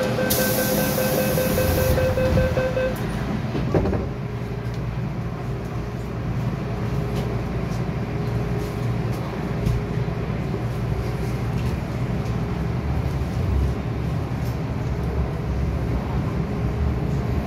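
Low, steady hum and rumble of an MTR M-Train standing at a metro platform. For the first few seconds a buzzy electronic tone sounds over it, and a single click comes about four seconds in.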